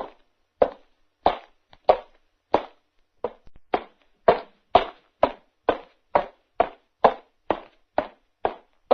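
Footsteps walking at a steady pace, each step a single sharp tap, about one and a half a second at first and quickening to about two a second around halfway through.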